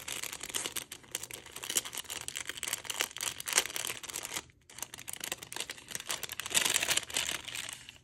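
Clear plastic bag crinkling as it is handled and opened by hand, with a short lull about halfway through and a louder stretch near the end.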